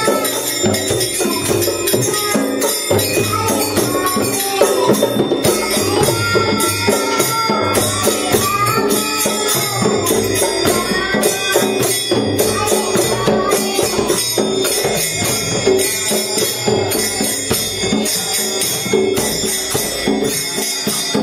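Children's kirtan: a young boy sings a chant into a microphone over hand drums (djembe, mridanga-style barrel drum and dholak) and jingling kartal hand cymbals keeping a steady beat.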